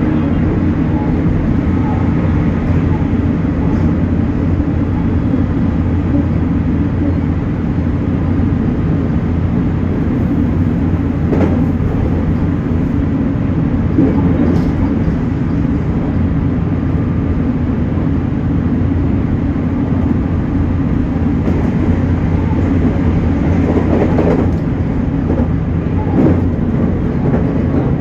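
JR Kyushu 813 series electric multiple unit running along the line, heard from inside the train: a steady low running hum with several steady tones, broken by a handful of sharp clicks.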